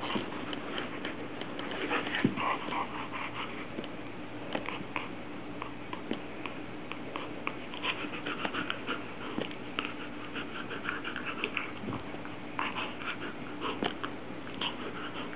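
A puppy making short, irregular play noises while it rolls on its back mouthing a tennis ball.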